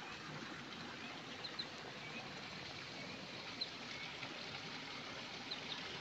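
Faint dawn ambience: a steady low hiss with a few short, high bird chirps scattered through it.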